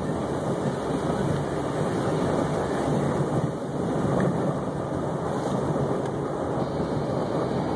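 Steady road and engine noise of a car driving along.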